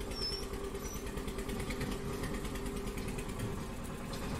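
A steady, engine-like mechanical hum, with two brief high chirps in the first second.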